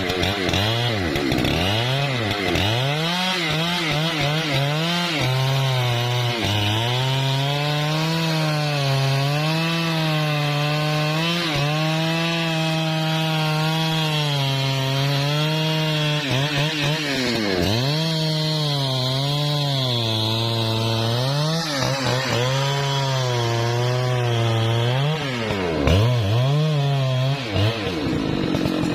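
Husqvarna 3120 XP two-stroke chainsaw cutting through wood under load. Its engine pitch repeatedly sags and climbs back as the load on the chain changes.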